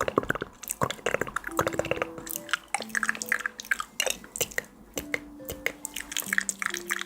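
Close-miked ASMR trigger sounds: dense, irregular wet clicks and squishes, several a second. Faint sustained notes sit underneath, changing pitch every second or so.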